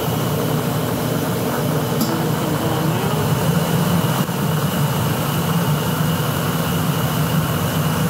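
Commercial steam boiler burner firing up: the combustion blower's steady drone and the burner flame, as the pilot lights and the burner comes on. It is a low rumble with a faint high steady whine, swelling slightly about three seconds in.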